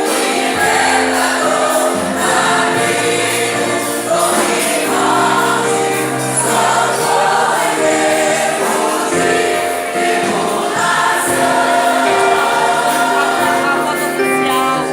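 A mixed choir singing a Christian worship song in Portuguese, with sustained chords.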